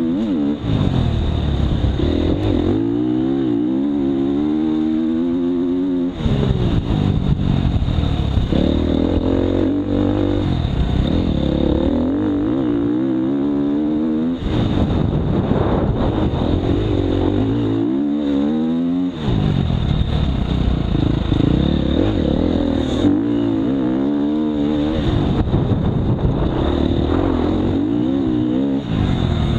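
Dirt bike engine revving up and falling back repeatedly while being ridden, its pitch climbing and dropping with the throttle and breaking off sharply a few times.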